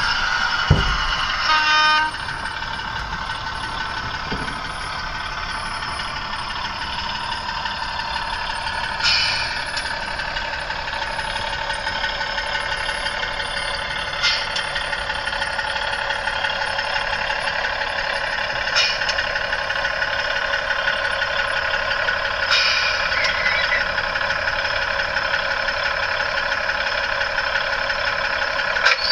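Sound-fitted OO gauge model diesel multiple unit playing a diesel engine sound through a small onboard speaker: a steady, thin engine drone with no deep bass. A brief tone about a second in, and short hissy bursts every four to five seconds.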